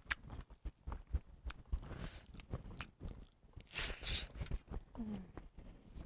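Close-up eating sounds: chewing and biting food, with wet mouth clicks and smacks throughout and a brief breathy hiss about four seconds in.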